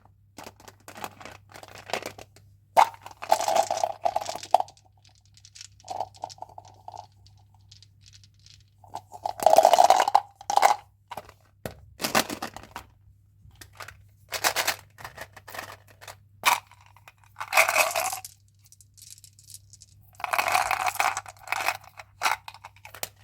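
Candy and chewing-gum wrappers being crinkled and torn open by hand, in irregular bursts of rustling and tearing with short pauses between them.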